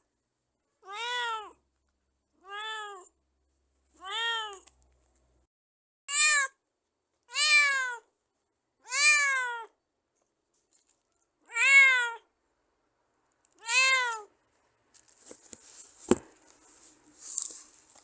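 A domestic cat meowing, eight separate meows each rising then falling in pitch, spaced a second and a half to two seconds apart. Near the end the meows stop and a scatter of small clicks and one sharp knock follow.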